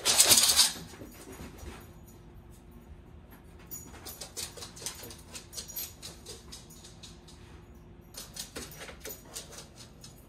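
A brief loud rustling rush at the start, then two spells of quick, light clicking, the patter of a Vizsla's claws on a hard floor as she moves through the rooms searching, about four seconds in and again near the end.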